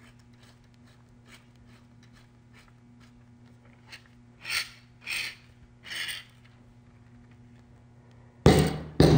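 Two fiberglass antenna mast sections being screwed together by hand at their metal threaded coupling: light clicks, then three short rubbing rasps as the sections are twisted.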